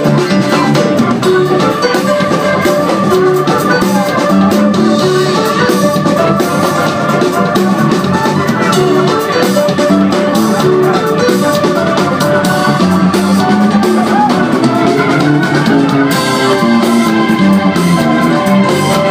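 Live funk band playing an instrumental at full volume: electric guitar and organ over a drum kit beat.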